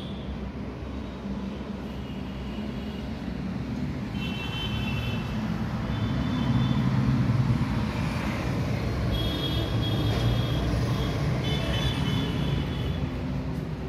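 Road traffic heard through an open window: a steady low rumble that swells through the middle, with several short high-pitched tones over it.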